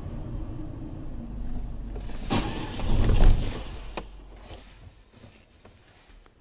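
Steady low road and engine rumble from inside a moving car. About two and a half seconds in, a car crashes into parked cars ahead: a loud swell of noise with a few sharp knocks, which then dies away.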